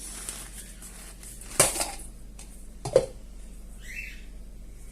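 Plastic diffuser dome of an LED bulb being pried open: two sharp plastic snaps, the first about a second and a half in and the second about three seconds in, with a brief squeak near the end.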